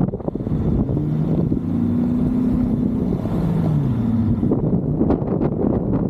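Wind buffeting the microphone, with a motor's hum in the middle that rises slightly in pitch, holds, then drops away.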